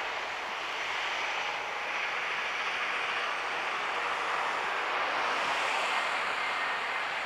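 Boeing 747's four jet engines at takeoff thrust during the takeoff roll: a steady rushing noise that grows a little louder about five seconds in, with a faint high whine slowly falling in pitch above it.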